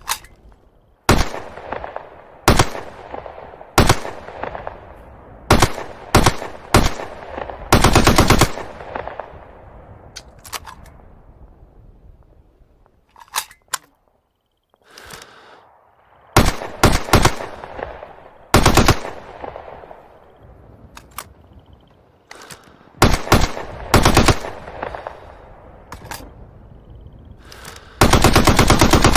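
9 mm MP40 submachine gun firing a series of short bursts of automatic fire, each trailing off in an echo. Longer bursts come about eight seconds in and near the end.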